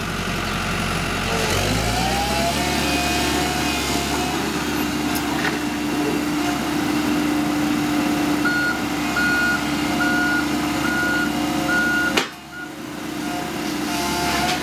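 Komatsu PC138US-8 excavator's diesel engine running steadily, its revs rising about two seconds in as the hydraulics raise the boom. From about eight seconds in, a warning beeper sounds five times, about two beeps a second and a half. Near twelve seconds in the sound cuts out briefly after a sharp knock, then the engine returns.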